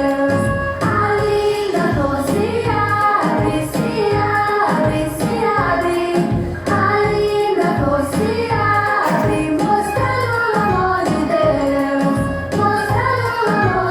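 Children singing a song with musical backing.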